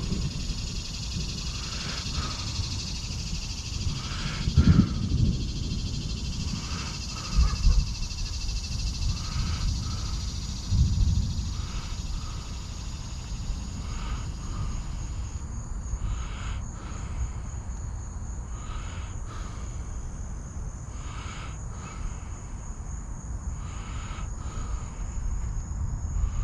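Outdoor insect chorus, likely crickets, buzzing steadily, with a short animal call repeating about every two seconds. Low rumbling noise runs underneath, with a few brief louder low thumps in the first half.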